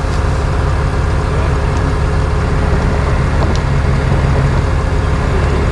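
Truck engine running steadily, its low drone growing a little stronger about halfway through.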